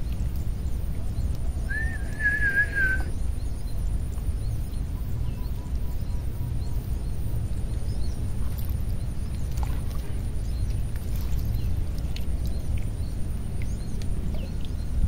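Outdoor waterside ambience: a steady low rumble, with one short warbling bird call about two seconds in and faint scattered chirps.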